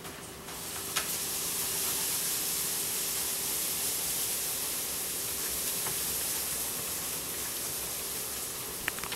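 Steady high hiss with a faint low hum underneath, and a couple of light clicks.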